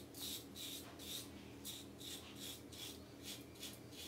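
Merkur Progress adjustable double-edge safety razor with a Feather blade scraping through a couple of days' lathered stubble on the neck: short, quick, faint rasping strokes, about three a second.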